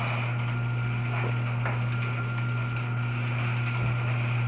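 LiftMaster 8365 chain-drive garage door opener running as it lowers the door: a steady motor hum with a few light clicks.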